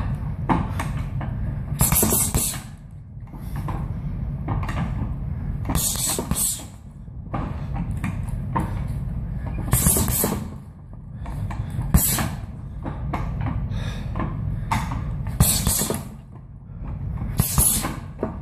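Gloved punches thudding into a round heavy bag hung on chains, with the chains and hanger rattling and creaking in loud bursts every few seconds as the bag swings, over a steady low rumble.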